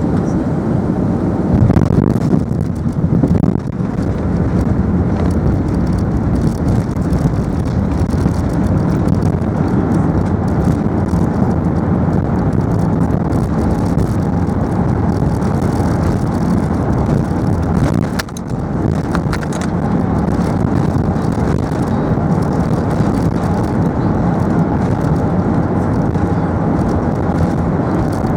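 Steady rumble inside the cabin of an Airbus A380 as it rolls on the ground after landing. It swells briefly about two seconds in and dips for a moment near the middle.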